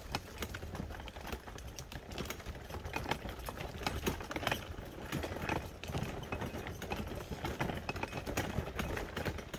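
Footsteps crunching over rough ground, irregular short steps and clicks, over a low steady rumble.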